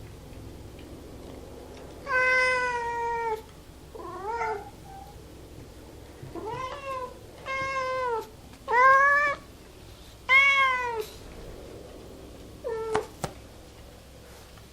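A cat meowing repeatedly: about seven separate meows, the first one long and drawn out, the rest shorter, several with a rise and fall in pitch. A couple of sharp clicks come near the end.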